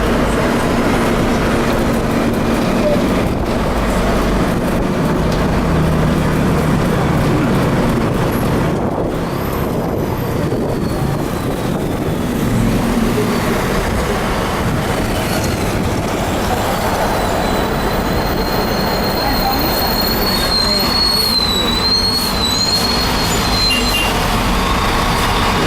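Volvo B340M (B12M) bus with a Voith automatic gearbox under way: its straight-six diesel engine running with heavy road and running noise. A thin, high, wavering whine comes in during the second half.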